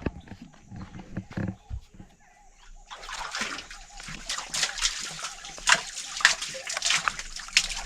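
Water splashing and sloshing at a well as a bucket of water is drawn and handled, with a few scattered knocks first and a steadier run of splashes from about three seconds in.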